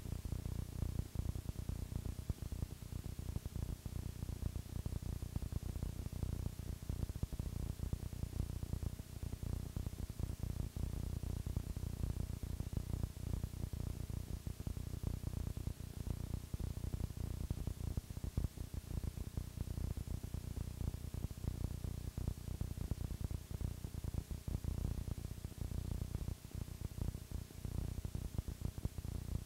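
Blank-tape noise with no program sound: a dense, low crackle and hiss over a steady hum, unchanging throughout.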